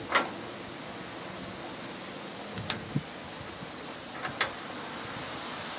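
Hydraulic quick couplers for the front loader's hoses on a John Deere 955 tractor being pushed onto their fittings by hand, giving a handful of short sharp clicks as they lock in, over a steady background hiss.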